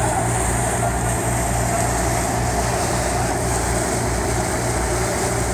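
A river car ferry's engine running with a steady low drone, with water churning and rushing along the hull as the vessel moves.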